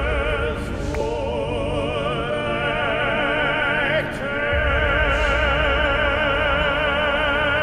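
Operatic singing in a music track: long held notes with wide vibrato over a deep low drone, a new note starting about four seconds in.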